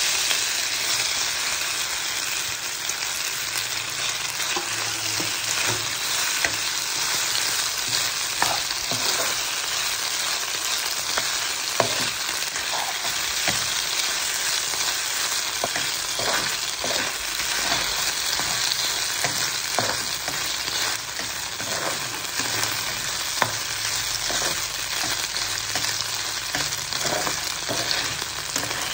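Marinated chicken pieces frying in hot oil in a pan: a steady sizzle, with scattered clicks and scrapes of a spatula stirring them.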